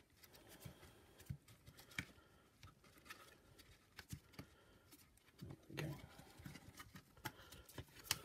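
Faint, scattered clicks and light knocks of plastic parts being handled as a drive belt is worked onto the motor pulley of a vacuum cleaner's power nozzle.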